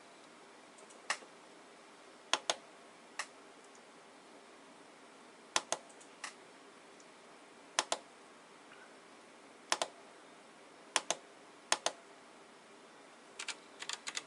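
Fiodio gaming keyboard keys clacking as they are pressed one at a time, often in quick pairs, a second or two apart, then a fast run of keystrokes near the end.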